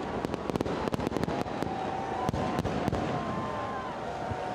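Fireworks salute: many shells bursting in quick succession with sharp cracks, thinning out after about three seconds. Long, wavering whistles sound over the bursts.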